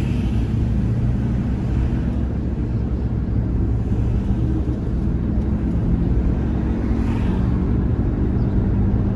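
Steady engine and road noise of a moving car heard from inside the cabin, an even low drone.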